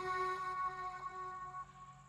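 Background music: held guitar-like notes ringing on and fading out, almost gone by the end.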